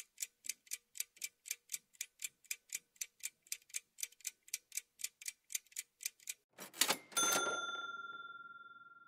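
Quiz countdown-timer sound effect: a clock ticking about four times a second, then, as time runs out, a short rattle and a single bell-like ding that rings and fades over about two seconds.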